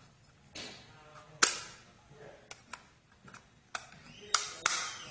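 Sharp metallic clicks and snaps, about seven scattered strikes with the loudest about one and a half seconds in, as a part of a wind-up alarm clock's movement is pried loose.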